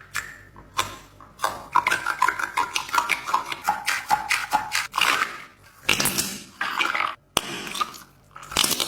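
Slime being squeezed and pressed by hand: a few single clicks, then a fast run of crackling pops and squelches with short pauses.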